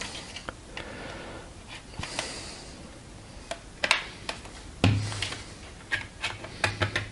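Scattered clicks and knocks from a plastic pry tool working around the seam of a TP-Link TD-W9970 router's plastic case, with a stretch of scraping about a second in. The clicks are the case's snap clips being forced apart. The loudest knock comes just before five seconds in.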